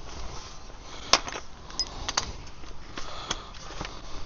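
A few light metallic clicks and clinks from hand tools on the suspension, about once a second, over a steady hiss of heavy rain.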